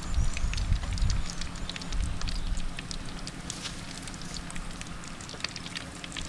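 Wind buffeting the microphone with a low rumble for the first two and a half seconds, then easing, with faint scattered clicks and crackles throughout.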